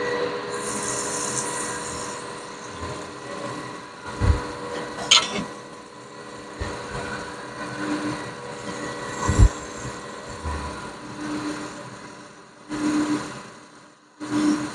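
Machine-shop machinery running with a steady hum, with rubbing and scraping and several sharp knocks, the loudest about nine seconds in, and a short burst of noise near the end.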